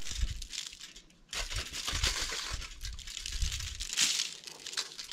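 Irregular crinkling rustle from a plastic spice packet and a sheet of aluminium foil while spice is shaken over fish, with low rumbles of wind on the microphone.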